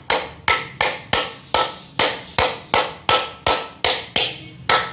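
Hammer tapping a new 6201 ball bearing into place in a ceiling fan, about three sharp metallic blows a second in a steady rhythm.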